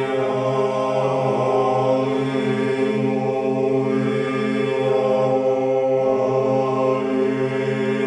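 Background music: slow vocal chant holding long notes over a steady low drone.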